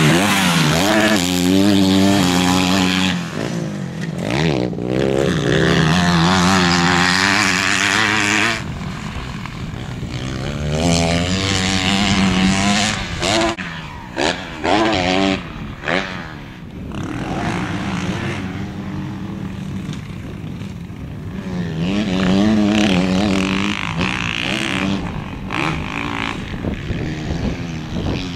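Motocross bike engine revving up and easing off over and over as it rides the track, its pitch rising and falling, with a few short throttle cuts about halfway through as the bike goes over jumps.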